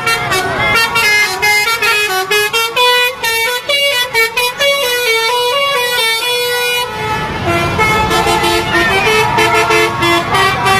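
Indonesian 'telolet' / 'basuri' musical vehicle horn playing a quick tune, its notes stepping rapidly up and down. About seven seconds in, a low rumble joins and the tune carries on at a lower pitch.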